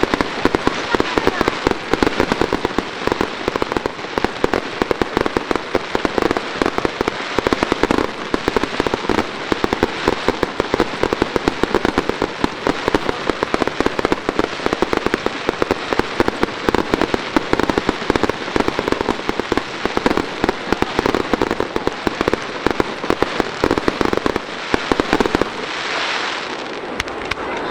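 Fireworks going off in a dense, rapid barrage of bangs and crackles, many per second, easing off about 25 seconds in.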